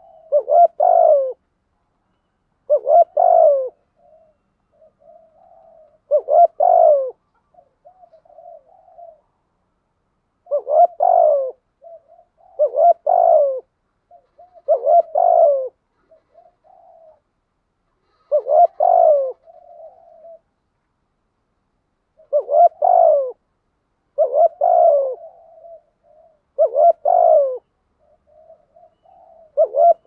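Spotted dove cooing in a long series of loud, short coo phrases about every two seconds, each falling in pitch, with soft murmured coos between them. This is the insistent 'gáy thúc' cooing that keepers prize in a decoy dove.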